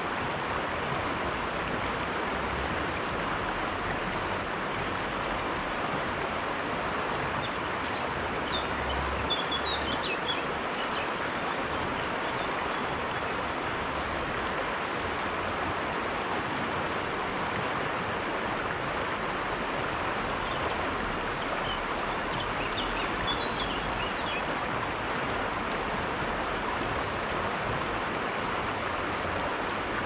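River water rushing steadily over stones in a constant, even rush. Small birds give brief high chirps in two short bouts, about a third of the way in and again past two-thirds.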